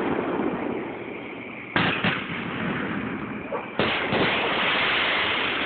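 Aerial fireworks shells bursting in a finale: two sharp booms about two seconds apart, the first doubled. Each is followed by a long noisy tail that runs on under the next.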